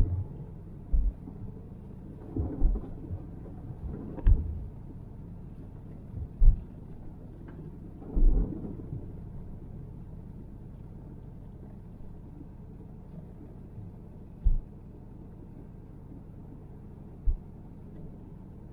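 Steady low rumble inside a car's cabin, broken by short, loud, low thumps at uneven intervals, several in the first eight seconds and only two later.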